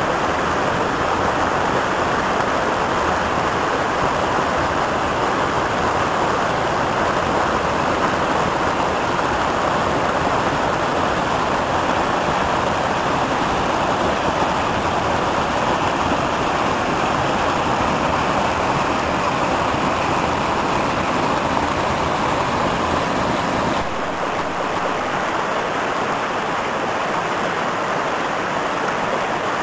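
Small mountain creek rushing over rocks in small cascades: a steady, full rush of water, a little quieter from about 24 seconds in.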